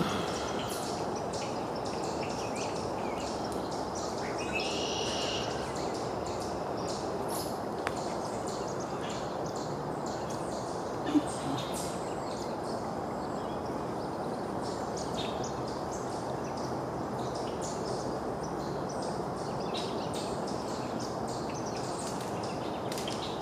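Creek water running steadily, with scattered bird chirps over it and one clearer bird call about five seconds in. A single sharp click comes about eleven seconds in.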